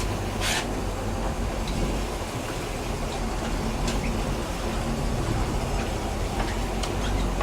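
A boat engine running steadily at low speed, a constant low rumble with wind and water noise over it, and a few short clicks.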